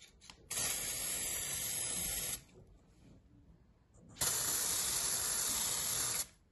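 Aerosol spray paint can hissing in two steady bursts, each about two seconds long, with a short pause between them, as red paint is sprayed onto clear plastic.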